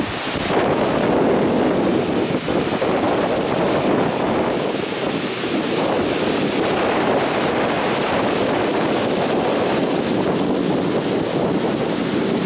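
Steady rushing of a waterfall, with wind buffeting the microphone.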